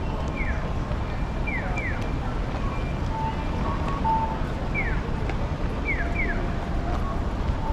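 Busy outdoor city ambience: a steady low rumble of traffic with wind on the microphone. Over it, short high chirps that fall in pitch, mostly in pairs, recur every second or so, and a few brief steady tones sound about three to four seconds in.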